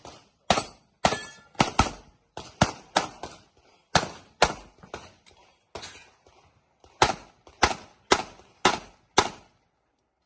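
Handgun shots fired rapidly in pairs and short strings, about twenty in all, with brief pauses between strings; they stop shortly before the end.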